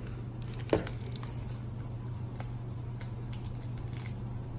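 A sharp click about three quarters of a second in, then a few faint ticks of small parts being handled, over a steady low hum.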